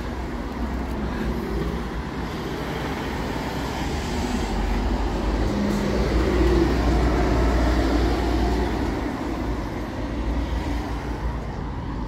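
Road traffic: a motor vehicle's engine and tyres passing by, growing louder to a peak a little past halfway and then fading.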